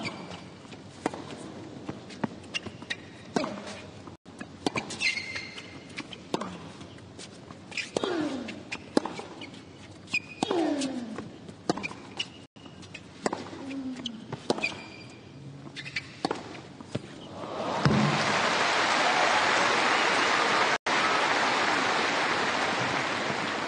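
A tennis rally: racket strings hitting the ball every second or two, with the players' short falling grunts on some shots. About eighteen seconds in the rally ends and the crowd breaks into loud, steady applause.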